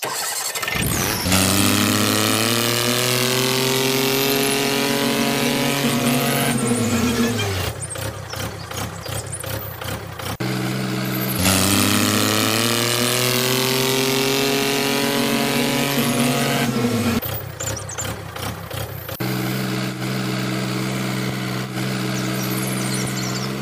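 Tractor engine sound effect: the engine revs up and holds for several seconds, drops back to a chugging idle, revs up again in the same way, then settles into steady running.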